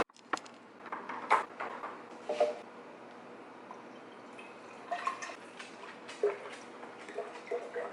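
Scattered light taps, clicks and small clinks of objects being handled and set down, a few of them with a short ringing note.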